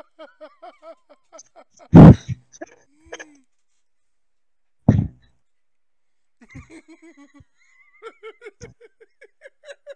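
Stifled laughter, short breathy pitched bursts coming several a second, broken by two loud low blasts about two and five seconds in, the first reaching full level.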